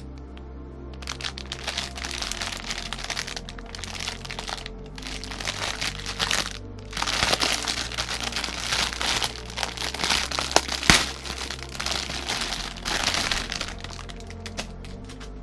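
Plastic packaging crinkling and rustling in bursts as it is handled and opened, with a sharp crack about eleven seconds in, over steady background music.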